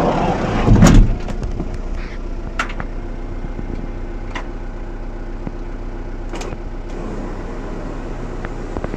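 A loud thump about a second in, then the Mazda Bongo's electric window blind lowering: a steady hum broken by a few sharp clicks.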